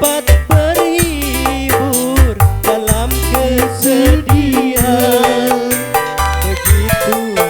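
Live dangdut music from an orgen tunggal keyboard setup: a steady drum beat with deep hits under a melody line that slides and wavers in pitch.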